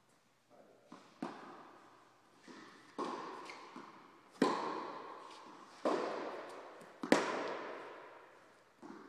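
Tennis balls struck by rackets and bouncing on an indoor court: about six sharp pops, each trailing a long echo in the large hall, the loudest about four and a half and seven seconds in.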